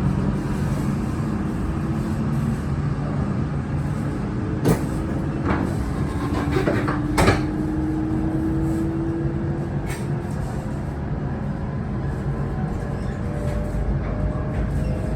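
Interior running sound of an E6 series Shinkansen: a steady low rumble with a slowly rising motor whine from its Toshiba IGBT VVVF traction equipment, and a few sharp knocks around the middle.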